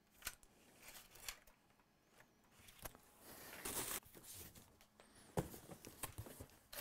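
Quiet handling noises as a boxed graphics card and its packaging are moved about: scattered light clicks and knocks, with a brief rustle a little under four seconds in.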